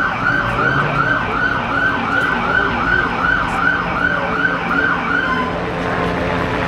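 Police car siren in a fast yelp, about three rising-and-falling sweeps a second, cutting off about five seconds in, over a steady low hum.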